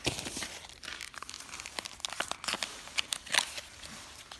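Yu-Gi-Oh card pack wrapper crinkling and crackling as fingers pull and tear at it, struggling to open it. The crackles come in an irregular run, with the sharpest ones in the second half.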